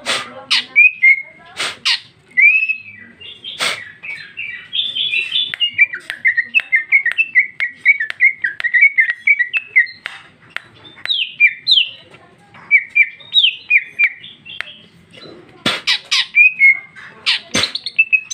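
Female greater green leafbird (cucak ijo) singing: a long, busy run of quick chirps and warbled notes, with sharp, loud clicking notes breaking in near the start and again near the end.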